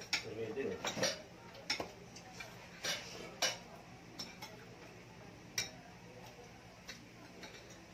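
Spoons and forks clinking and scraping against plates as people eat: irregular sharp clicks, about one or two a second, with brief low voices in the first second.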